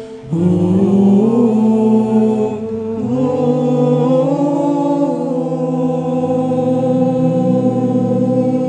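Group of young male voices singing a nasheed in harmony through microphones: held chords, with the melody sliding up between notes a couple of times, after a brief break for breath right at the start.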